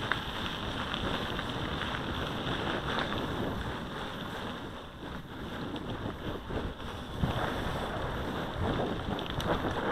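Wind buffeting the microphone of a riding mountain bike's camera, over the steady rolling noise of knobby tyres on a gravel track with small clicks and rattles.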